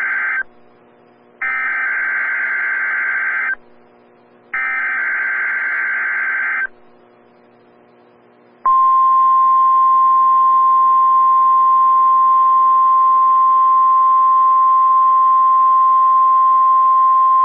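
NOAA Weather Radio SAME header: the end of one burst of buzzy digital data tones, then two more bursts of about two seconds each, a second apart. Then the steady 1050 Hz Warning Alarm Tone sounds for about nine seconds, marking the weekly alarm test.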